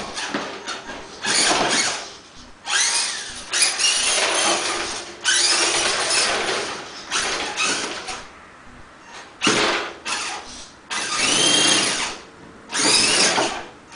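Electric motor and geared four-wheel-drive train of an Axial RC rock crawler whining in repeated short bursts, each rising and falling in pitch, as the truck is driven in spurts and climbs onto a plastic box.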